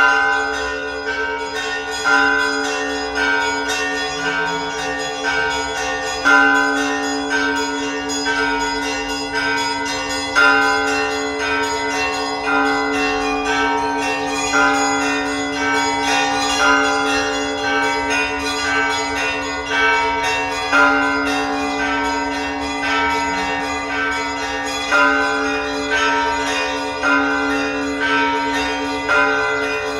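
Church bells ringing: smaller bells struck in a quick, repeating pattern over a steady hum from deeper bells, with a louder stroke every few seconds.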